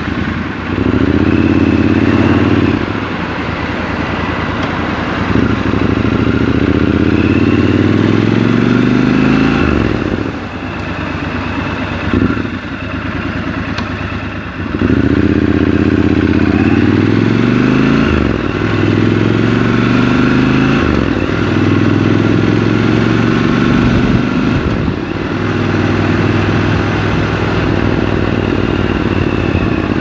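Triumph Scrambler 1200 XC's 1200 cc parallel-twin engine pulling away and accelerating through the gears, its pitch rising over several seconds and dropping at each change. It eases off around ten seconds in, pulls hard again around fifteen seconds in, then runs more steadily at cruising speed.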